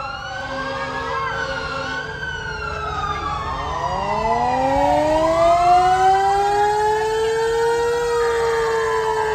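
Several fire engine sirens wailing at once, their rising and falling pitches overlapping. About four seconds in, one siren winds up from a low pitch and then holds a high, nearly steady pitch.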